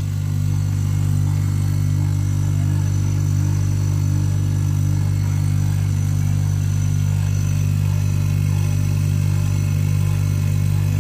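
Air-conditioner compressor rigged as an air pump, running with a loud, steady low hum as it pumps air into a wheelbarrow tyre.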